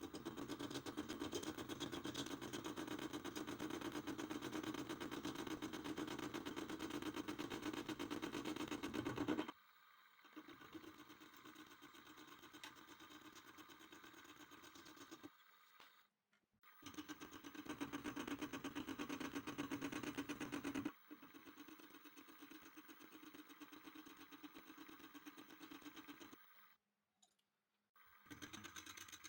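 A small bench-top machine tool running and cutting metal, heavier during two spells and lighter between them, with abrupt breaks where the sound cuts out.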